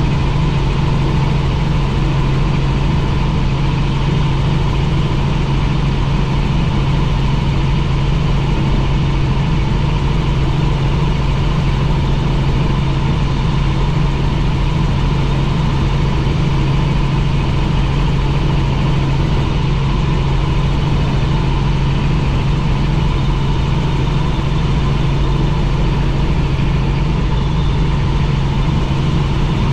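Helicopter in flight: the steady, loud drone of engine and rotors, a strong low hum with a fainter steady whine above it, unchanging throughout.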